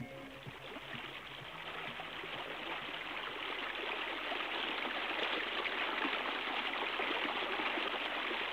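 River water rushing, a steady noise that fades in over the first few seconds and then holds.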